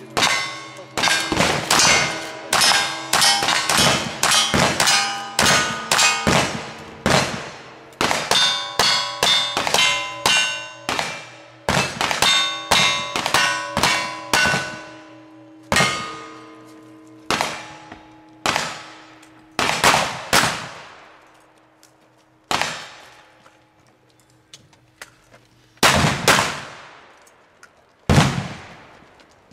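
Gunshots in quick succession, each followed by the ringing clang of a steel target being hit. The pace slows after about fifteen seconds, and two deeper blasts come near the end.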